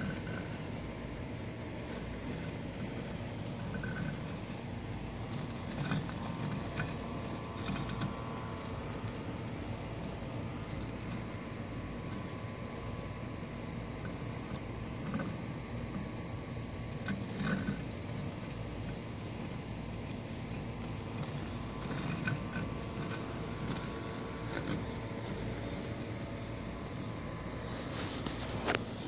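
Husqvarna Automower robotic lawn mower running as it cuts grass, a faint steady motor whine over a noisy background. Insects chirp steadily behind it.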